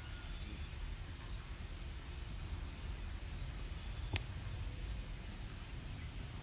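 Quiet outdoor ambience: a low steady rumble with a few faint high chirps, and a single sharp click about four seconds in.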